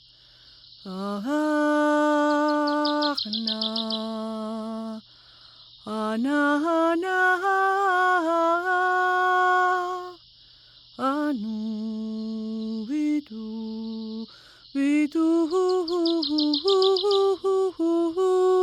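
A single voice toning: wordless sung and hummed notes held for a second or more at a time, stepping between pitches in short phrases with brief pauses between them. A short, rapid high trill, like a bird's, sounds twice in the background.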